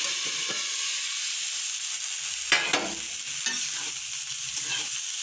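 Thin potato sticks sizzling as they fry in oil in a steel kadhai. About two and a half seconds in there are two sharp knocks of steelware, then a spatula stirs and scrapes the potatoes in the pan.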